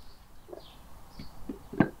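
Knife chopping on a wooden cutting board: a few soft knocks, then one sharp chop near the end. Birds chirp faintly in the background.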